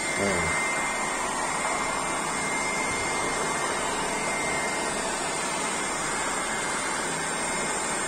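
Electric heat gun running steadily, its fan blowing hot air with a constant hiss and a thin, steady high whine. It is held close to soften vinyl interior film so that the film can be peeled.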